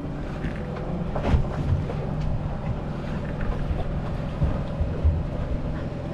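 Fishing boat's motor running with a steady low drone, with a single knock about a second in.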